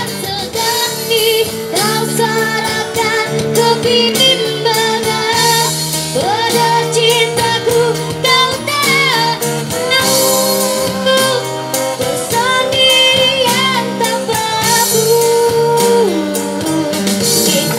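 A young girl singing a song through a microphone and PA speaker, backed live by acoustic guitar, electric guitar and keyboard, with vibrato on her held notes.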